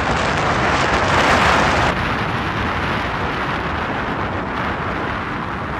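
Steady hiss of road and wind noise inside a moving car at highway speed. It drops slightly and becomes duller about two seconds in.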